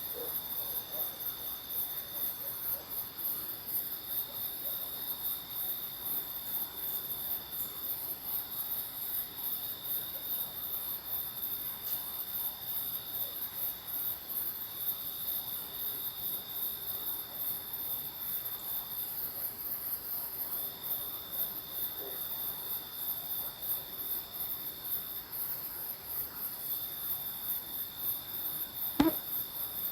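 Night chorus of crickets and other insects: a high, fast-pulsing chirring throughout, with a lower steady trill that stops and starts every few seconds. A single sharp click near the end.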